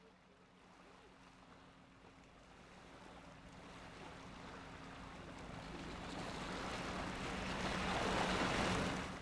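Water washing gently on a pebble shore, a soft rush that grows steadily louder through most of the stretch and falls away near the end, over a faint steady low hum.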